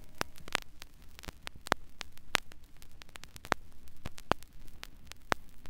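Vinyl record surface noise in the quiet groove between two tracks: irregular clicks and pops over a low hum.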